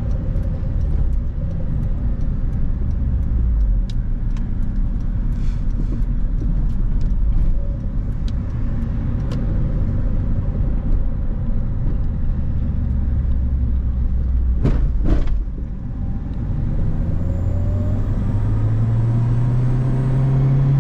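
Acura RSX Type S's four-cylinder engine and road noise as the car drives in freeway traffic: a steady low rumble, with a couple of sharp clicks about 15 seconds in and an engine note that rises over the last few seconds as the car gathers speed.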